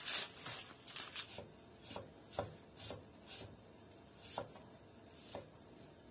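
Kitchen knife slicing an onion on a wooden board: about ten separate cuts, roughly two a second, with a short pause partway through.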